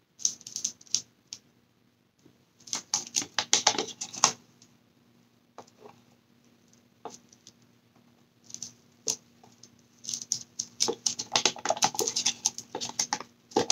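Light clicking and tapping of plastic in irregular clusters: a clear plastic mixing cup and stir stick knocking against each other and the silicone mold as resin is poured. A burst of clicks comes near the start, another around three to four seconds in, and a busier run from about ten seconds on.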